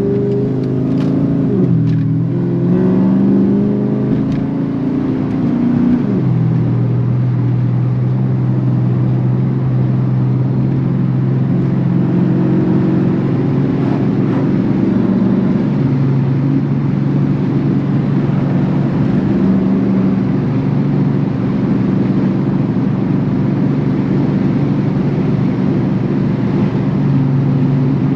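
Turbocharged Dodge Challenger SRT8's V8 engine under way. The pitch climbs and falls sharply twice in the first six seconds as it pulls through the gears, then the engine settles into steady cruising with small rises and dips.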